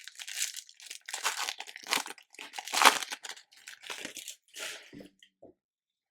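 Foil trading-card pack wrapper crinkling and crackling in a run of irregular rustles while the cards are handled, stopping about five and a half seconds in.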